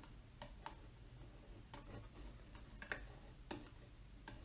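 Faint computer mouse clicks, about seven at uneven intervals, over a low steady hum.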